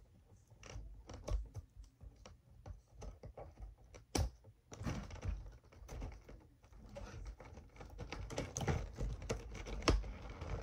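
Doll packaging being cut and worked open: scattered light clicks and snips, one sharper snap about four seconds in, then rustling plastic with more clicks in the second half.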